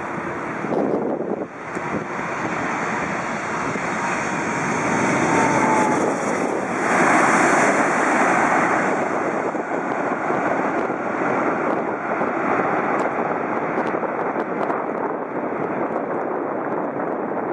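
Jet engine noise of a Boeing 747-8F freighter's four GEnx engines during its landing rollout, swelling about seven seconds in and then holding steady, with wind buffeting the microphone.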